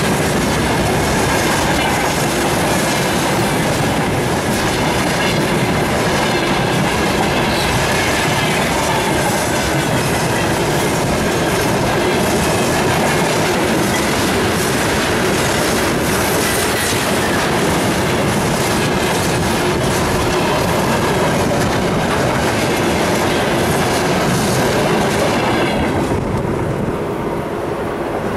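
Freight train wagons, tank cars and open gondolas, rolling past close at track level, their steel wheels clattering over the rail joints in a steady loud rumble. Near the end the last wagon goes by and the noise falls away.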